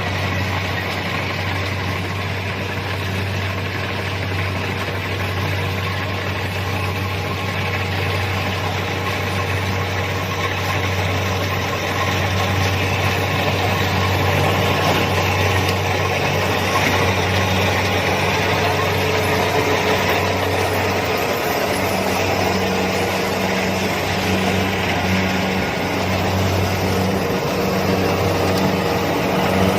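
Kubota DC-70 combine harvester's diesel engine running steadily as the machine works, a constant low drone under a wash of machinery noise.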